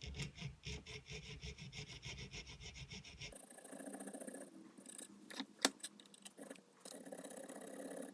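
Hand file stroking back and forth across steel, filing the part to fit. It starts with quick, even strokes, then changes about three seconds in to slower scraping strokes, with one sharp click just past halfway.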